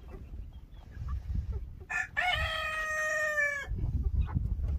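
A rooster crowing once: a single long call of about a second and a half, starting about two seconds in.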